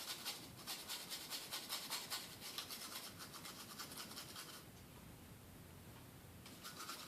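Small brush scrubbing corrosion off a circuit board's memory card terminals in rapid back-and-forth strokes. The strokes pause for a couple of seconds about two-thirds of the way through, then start again.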